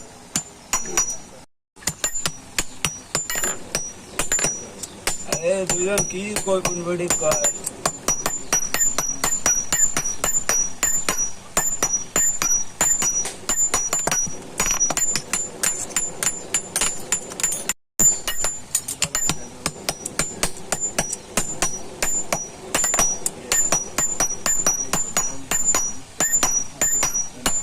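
Nail-making workshop machinery clattering and striking metal in a rapid, continuous run of knocks, with a repeating high two-note squeal on top. It cuts out for an instant twice.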